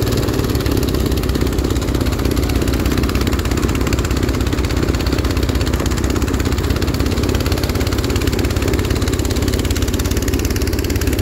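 Snowblower's small gasoline engine running steadily, without a break.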